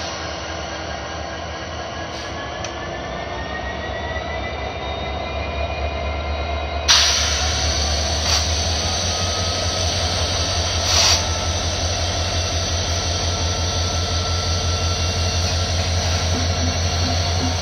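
Union Pacific diesel locomotive rolling slowly through a rail yard, its engine running with a steady low drone that grows louder as it comes closer, with faint high wheel squeal in the first few seconds. A sudden loud burst of noise comes about seven seconds in, with shorter ones a second later and around eleven seconds.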